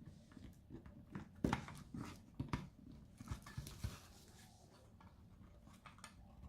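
Faint scattered clicks and light knocks of plastic parts being handled, a few seconds apart and irregular.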